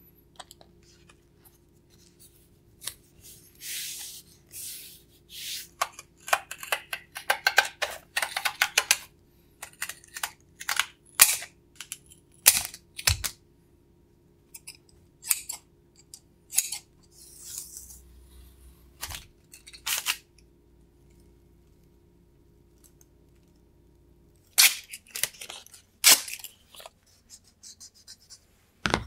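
Masking tape being peeled and scissors snipping through tape-covered carbon fibre sheet: a series of sharp snips, clicks and tearing sounds with short quiet gaps between them.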